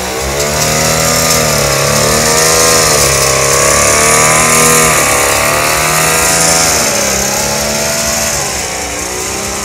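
Small engine of a wheeled parade cart with a big exhaust pipe, revving up and down so that its pitch dips and rises several times. A steady hiss runs over it.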